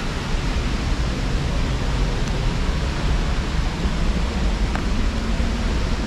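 Waterfall: a steady rush of falling water, an even hiss without breaks.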